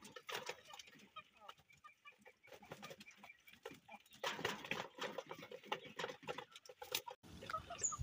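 Chickens feeding at a plastic grain feeder: faint soft clucks over many quick pecking taps on the grain tray.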